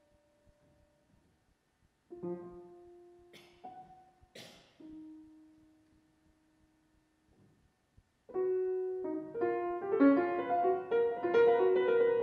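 Grand piano in a contemporary piece: a few sparse held notes with long silences between them, and two short hissing noises about three and a half and four and a half seconds in. About eight seconds in, a dense rush of notes begins and grows louder.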